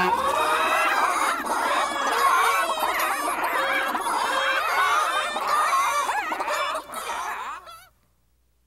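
Many chickens clucking and squawking at once in a dense cackle, dying away near the end.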